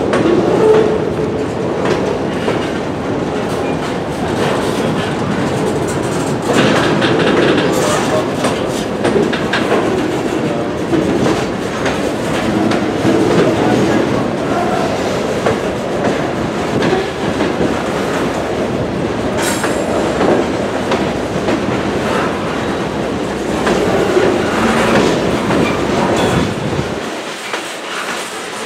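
Freight cars of a passing train rolling by: a steady rumble of steel wheels on rail, broken by repeated clicks as the wheels cross rail joints.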